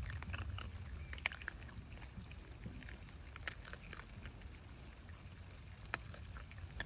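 Raccoon dogs crunching dry kibble: irregular, sharp little crunches and clicks, over a low steady rumble.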